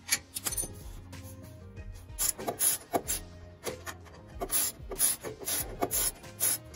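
Background music over a run of irregular rasping, scraping strokes of a spanner working the bolt of an exhaust clamp. The strokes come thicker and louder from about two seconds in.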